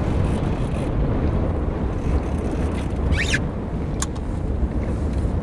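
Steady low rumble of a sportfishing boat at sea, engine and wind, with a brief high squeal about three seconds in and a sharp click a second later.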